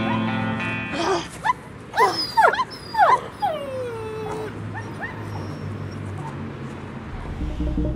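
A dog whimpering and yipping: a quick run of high cries that slide up and down in pitch, ending in one longer falling whine. Music plays at the start and stops about a second in.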